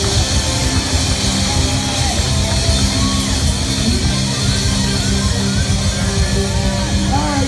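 Live rock band playing loud, with electric guitar and drums, in a crowded bar.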